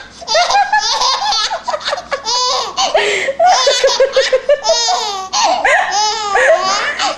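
Five-month-old baby girl laughing hysterically: runs of high-pitched belly laughs with short breaths between them.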